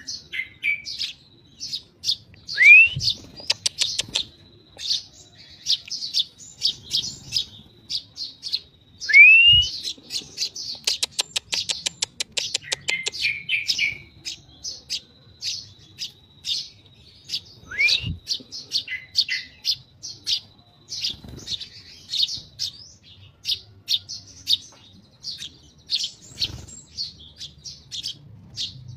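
Eurasian tree sparrow chirping rapidly and continuously in short high notes, with a few rising calls and two fast rattling trills.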